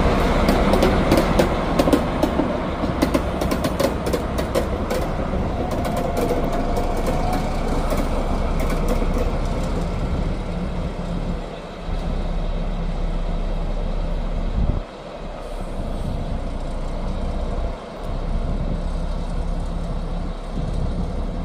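DB class 218 diesel-hydraulic locomotive running as it pulls away at low speed with a works train, its diesel engine humming steadily. Wheels click over the rail joints during roughly the first nine seconds, then the sound eases as the train draws off.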